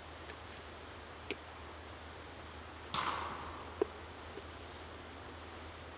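Forestry helmet's earmuffs and visor being adjusted by hand: a few light plastic clicks and a brief rustling scrape about three seconds in, over a steady outdoor hiss.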